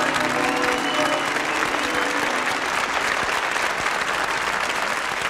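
Audience applauding at the end of a stage musical, a dense steady clapping. The music's last held chord dies away under the clapping in the first two seconds.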